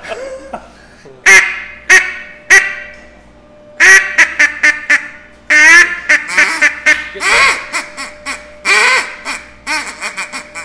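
Hand-blown duck calls sounding short, clipped quacks. Three single quacks come about half a second apart, then faster runs of quacks follow in calling cadences.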